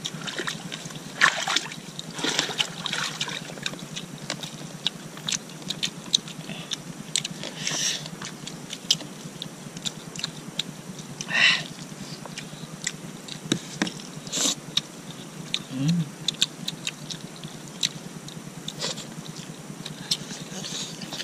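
Close-up eating sounds from people eating rice and chicken with their hands: chewing, lip smacks and short wet clicks scattered throughout, with a louder noisy burst about eleven seconds in and a brief low hum near sixteen seconds.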